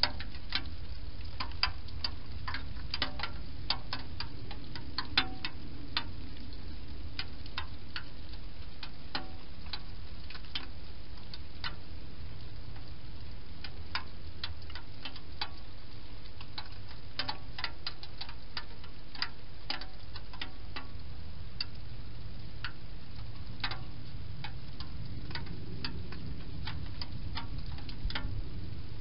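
Wild hedgehog eating from a food bowl: irregular sharp crunching clicks, a few a second with short pauses, over a steady low background noise.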